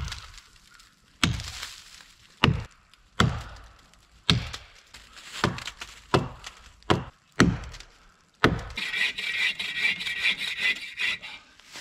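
Axe chopping a notch into the trunk of a dead standing tree, about ten strikes at uneven intervals. About nine seconds in, a bow saw takes over, sawing through the trunk with a steady rasp.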